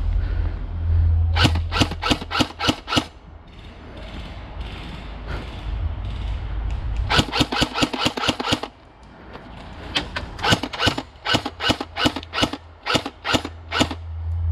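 Airsoft guns firing in runs of shots: a string of about seven, a fast burst around the middle, then steady shots about four a second near the end. A low rumble sits under the first couple of seconds.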